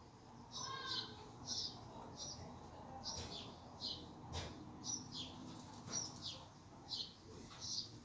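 Sparrow chirping over and over: short, high notes that fall in pitch, about one or two a second. A single soft knock comes about halfway through.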